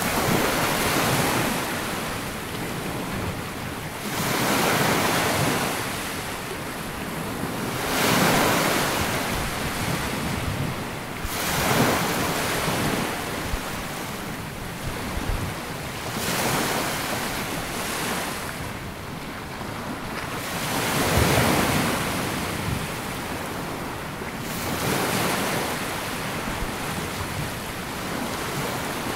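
Sea waves washing onto a sandy beach, surging and drawing back in a steady rhythm, about one wave every four seconds.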